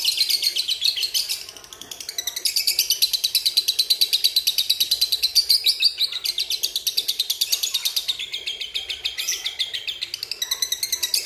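Male masked lovebird singing a long, unbroken run of rapid high chattering notes, the long chatter that lovebird keepers call 'ngekek panjang', with a short drop in level about a second and a half in.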